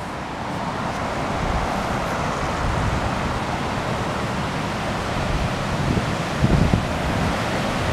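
Steady rush of river rapids running high, with wind buffeting the microphone a few times near the end.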